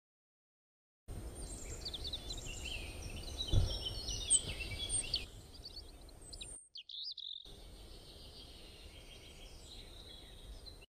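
Small birds chirping over a steady outdoor background hiss, starting about a second in, with a brief low bump partway through and a short break past the middle.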